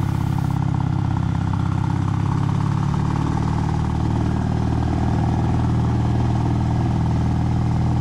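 Kawasaki W800 air-cooled parallel-twin running through stainless headers and reverse-cone megaphone slip-on mufflers, cruising steadily at low road speed with a deep, even exhaust note. There is wind noise on the microphone, and the engine note shifts slightly about three seconds in.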